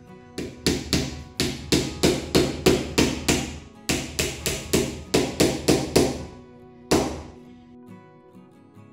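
Hammer striking a nail through a thin wooden strip into a wall: sharp taps at about three a second, in runs with short pauses, then one last blow about seven seconds in. Acoustic guitar music plays under it.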